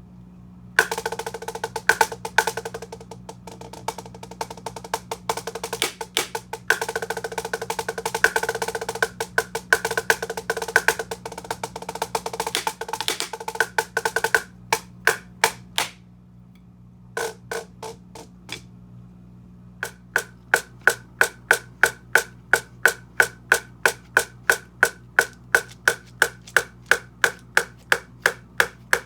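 Drumsticks on a snare-sound practice pad fitted with an adjustable snare, playing fast rolls and rudiment patterns, then a few scattered strokes and a brief pause, then even single strokes about two a second.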